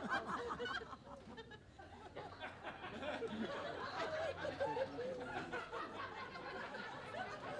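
A theatre audience laughing and chuckling at a punchline: scattered, subdued laughter from many people that dips about a second in and then picks up again.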